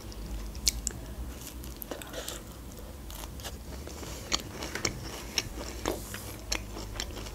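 Close-up chewing of a hard muesli cookie dunked in tea: irregular small crunches and clicks.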